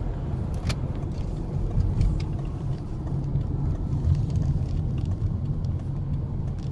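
Steady low rumble of road and engine noise heard inside the cabin of a moving hybrid car, with a few faint light clicks scattered through it.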